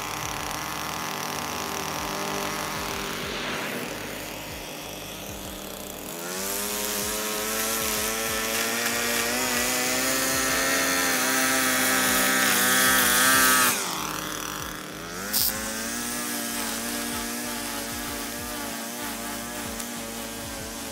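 Two-stroke string trimmer engine running. It revs up to high throttle while cutting along the concrete edge and holds there, drops back for a moment, then revs up again.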